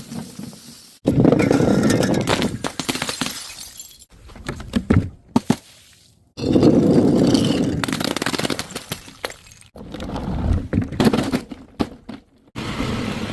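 Glass bottles smashing: three sudden loud breaks, each followed by shattering glass and shards clattering and scattering.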